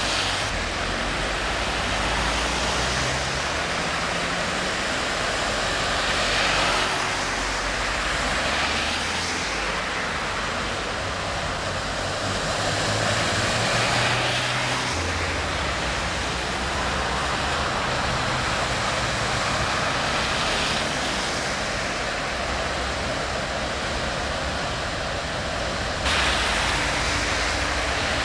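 Cars driving slowly through deep floodwater, tyres pushing and splashing through it over a steady rush of water, with engines humming underneath. The splashing swells several times as vehicles pass, and turns abruptly louder near the end.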